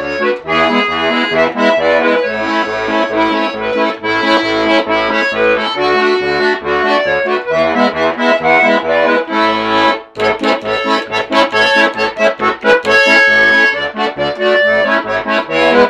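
Lively accordion music: a folk-style tune over a steady rhythmic bass. It breaks off briefly about ten seconds in, then carries on with quick, short notes.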